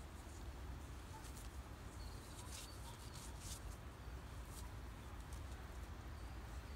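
Quiet outdoor ambience: a steady low rumble of wind on the microphone, with scattered short high-pitched ticks and rustles.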